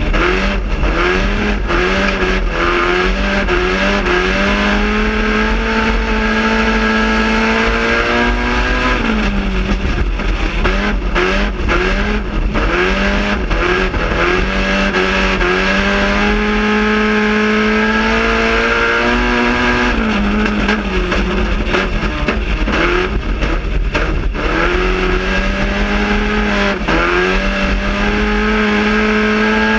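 GM Quad 4 inline-four race engine, heard from inside the car, running hard at high revs with a raspy note. The revs hold steady for long stretches and dip sharply, then climb back, about three times, with scattered knocks over the top.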